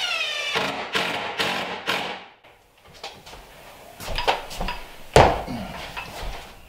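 Cordless driver whirring as it drives screws into the pine cabinet frame, its motor speeding up and slowing as each screw seats, and stopping about two seconds in. Then come a few light knocks and a sharp thump about five seconds in as the driver is set down on the floor.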